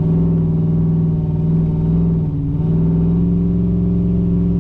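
The rear-mount-turbocharged 6.0 V8 of a GMC 2500HD pickup running steadily under way, with a brief dip in engine pitch about halfway through.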